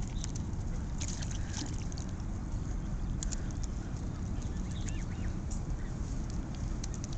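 Steady low rumble with scattered small clicks and splashes from a flock of Canada geese feeding and paddling at the rocky water's edge.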